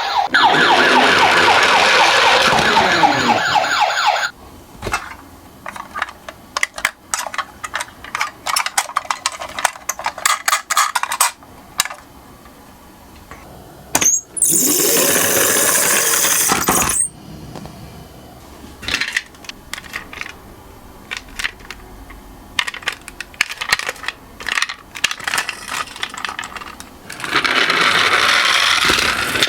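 A toy siren sounds for the first four seconds and stops; then toy minicars clatter and click irregularly as they roll and knock down a slope. Two louder stretches of noise cut in, one in the middle lasting a few seconds and one near the end.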